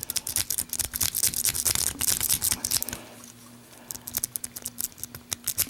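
City rake lock pick scraping and clicking quickly over the pin tumblers of a Master Lock No. 5 padlock, a fast run of small metallic clicks with a brief pause about three seconds in before the raking resumes.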